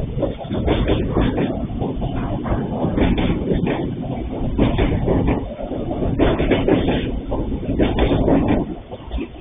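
Freight train's boxcars rolling past on the track: a steady, loud rumble with many clicks and knocks from the wheels, easing slightly near the end.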